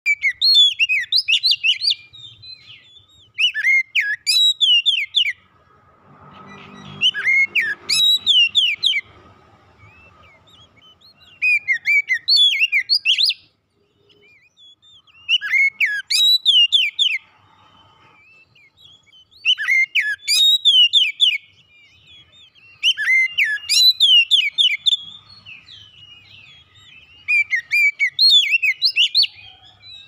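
Oriental magpie-robin (kacer) singing: loud phrases of rapid sweeping whistles, each a second or two long, about eight of them with short pauses between.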